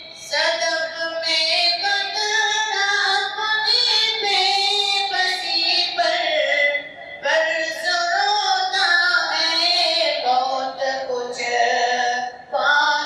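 A man singing a poem unaccompanied into a microphone, in long held melodic phrases, pausing briefly twice for breath.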